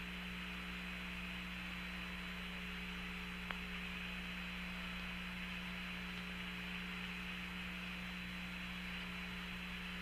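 Steady hiss and hum of an open Apollo air-to-ground radio channel between transmissions, with a thin high steady tone and one small click about three and a half seconds in.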